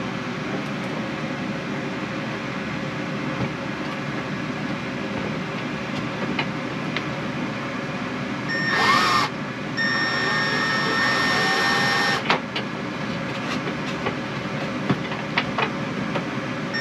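A Milwaukee drill spins up briefly about halfway through, then runs with a steady whine for about two seconds, followed by a sharp click and a few lighter clicks. This is the drill working a screw or hole into a wooden bracket strip. A steady background hum runs underneath throughout.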